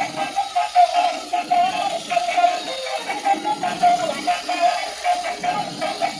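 Electronic music with a wavering synthesized melody line and quick clicking beats.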